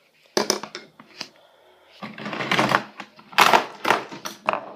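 Pocket knives being handled: a series of sharp clicks and knocks with a short rustling stretch in the middle, as knives are picked up and set down.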